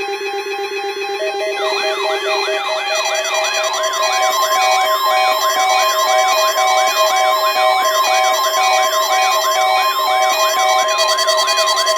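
Electronic alarm audio: a steady weather radio warning alarm tone starts about a second and a half in, layered with a fast siren-like sweep that rises and falls about two and a half times a second, over pulsing beeping tones.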